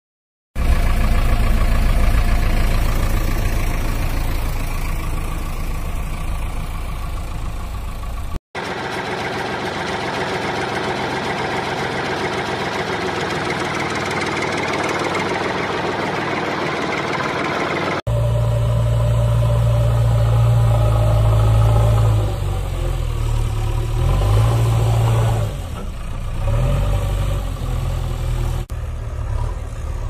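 A vehicle engine running steadily, heard in stretches joined by abrupt cuts about 8 and 18 seconds in. It is most likely a sound effect laid over the toy footage, since the toys themselves have no engines.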